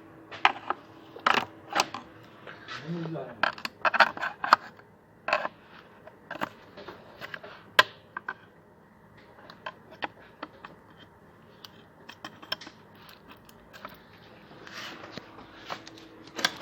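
Metal hand tools and engine parts clinking and knocking in irregular sharp strikes, the sound of an engine being taken apart by hand.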